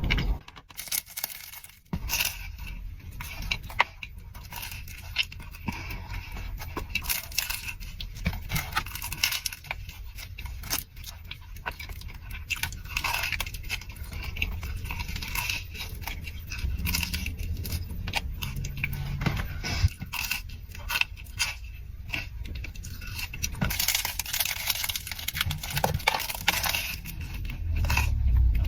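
Close-miked eating sounds: irregular crunching, chewing and crackling clicks.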